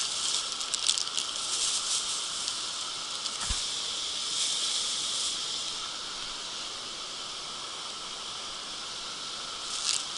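Clear plastic bag crinkling as it is handled, in short spells about a second in and again near the end, over a steady high hiss.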